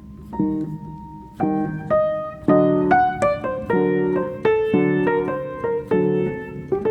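Slow background piano music: chords struck one after another, about every half second, each left to ring and fade.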